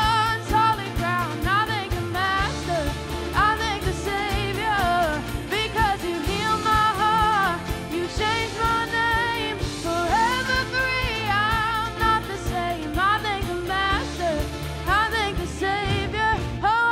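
A song played by a band: a lead singer's voice with vibrato over bass and a steady drum beat.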